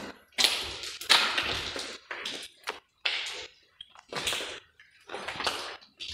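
Footsteps crunching and scuffing on a dirty, gritty floor, about one step a second.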